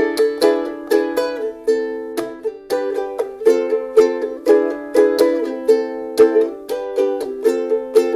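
Soprano ukulele played in a steady rhythm of chords, each stroke a sharp attack that rings briefly before the next.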